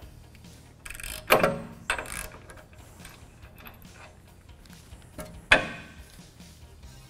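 Metal clinks and clanks of hand tools working the loosened tie rod end nut off its stud, with a few sharper metal knocks, the loudest about a second in and again near the end.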